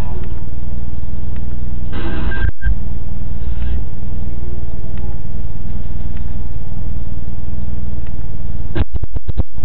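Loud, distorted low rumble with a steady low hum, overloading the recording. It breaks off for a moment about two and a half seconds in and stutters with several quick dropouts near the end.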